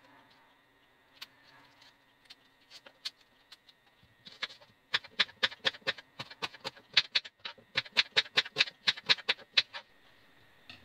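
Kitchen knife chopping a red onion on a wooden chopping board. A few light scattered clicks while the onion is peeled, then from about four seconds in a quick, even run of sharp knocks, about five a second, stopping near the end.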